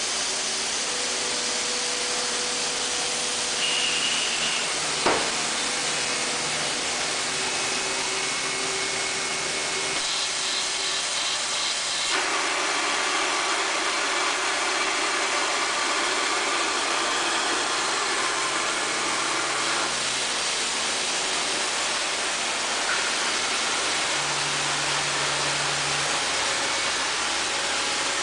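Okuma CNC lathe running: a steady mechanical hiss with faint motor tones that shift in pitch several times. A single sharp click comes about five seconds in, and the noise changes character about twelve seconds in.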